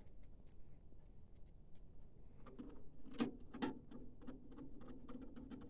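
Light, scattered clicks and taps of small printer parts being handled during repair work. A low steady hum comes in about halfway through.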